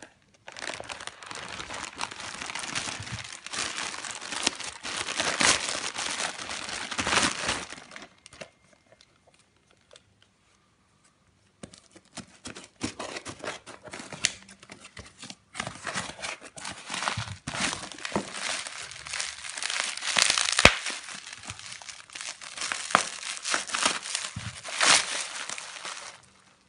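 Plastic parcel packaging and bubble wrap crinkling and tearing as they are handled and opened. The crinkling is irregular and comes in two long stretches, with a quiet gap of a few seconds about eight seconds in.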